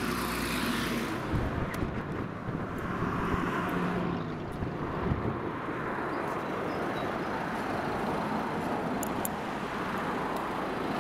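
Steady noise of road traffic, with no single event standing out.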